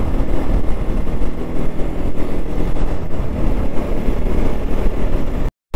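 Motorcycle riding at speed: a steady rush of wind on the microphone mixed with the Bajaj Pulsar NS200's single-cylinder engine running. It cuts off abruptly near the end.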